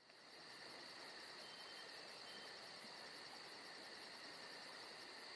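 Faint steady high-pitched background hum with a fast, even pulsing on top.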